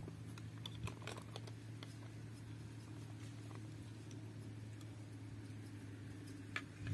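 Light clicks and scrapes of plastic toy kitchen utensils against a small plastic pot, several close together about a second in and a sharper click near the end, over a steady low hum.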